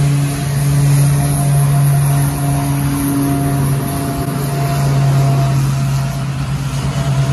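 A small aircraft's engines running on the ramp with a loud, steady drone and a hiss above it, as the plane gets ready to leave.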